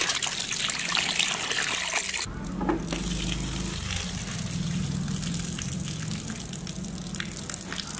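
Tap water gushing into a metal bowl of raw chicken pieces as they are washed by hand, with splashing. About two seconds in, the sound changes abruptly to softer, steadier running water with a low hum under it.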